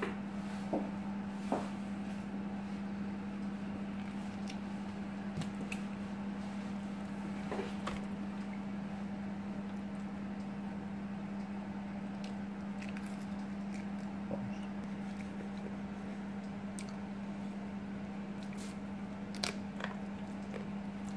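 A steady low hum, with soft wet squishing and scattered light clicks and taps as salmon flesh is pulled off the bones by hand on a wooden cutting board.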